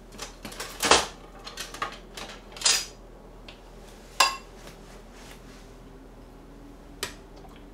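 Ceramic bowls and dishes clattering and clinking as they are picked up and handled, a string of sudden knocks, the sharpest clinks ringing briefly.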